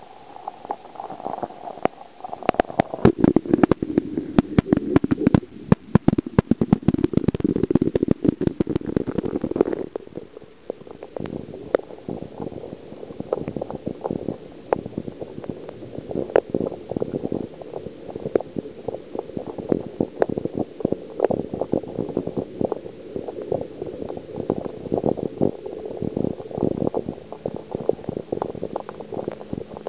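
Muffled underwater sound heard through a camera submerged in a goldfish pond: a low rumbling water noise with many sharp clicks and knocks, thick and rapid for the first ten seconds or so, then sparser.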